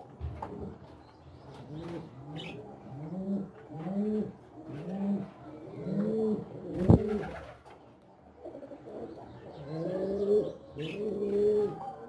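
A dove cooing off-camera in two runs of low, evenly spaced coos, about one a second, with a gap in the middle. A single sharp knock about seven seconds in, the loudest sound, and faint high chirps from small finches.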